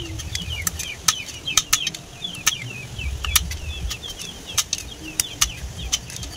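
A knife chopping the tips off freshwater snail shells against a wooden block: sharp, irregular cracks about two a second. Each cut opens the back of the shell so the snail can be pulled out. Birds chirp steadily underneath.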